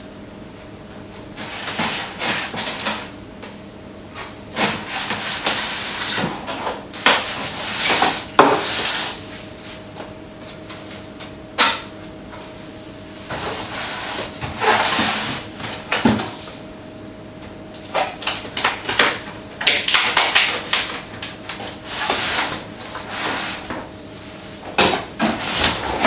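Packaging being handled while a microwave is unboxed: irregular bursts of rustling and scraping from the box and its packing, with scattered knocks, one sharp knock about halfway through.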